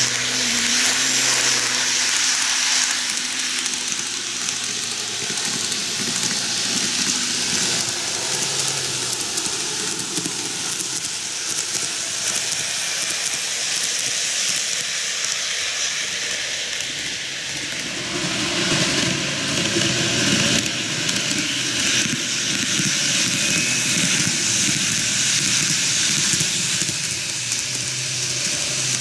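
N-gauge model electric trains running on plastic track: a steady whirring hiss from their small motors and wheels rolling on the rails.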